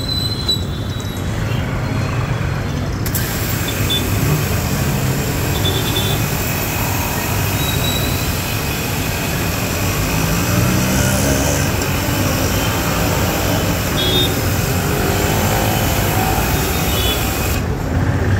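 Water jet from a 3 HP, 160-bar electric pressure washer hissing as it sprays onto a scooter. It starts about three seconds in and cuts off shortly before the end, over steady street traffic.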